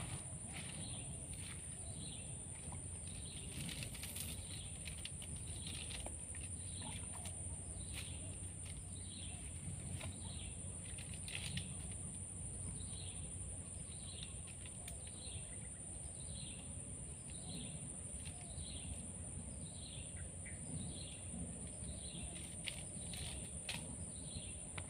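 Swamp-forest ambience: a steady high-pitched insect drone, with a bird repeating a short falling call about once a second and a few light clicks.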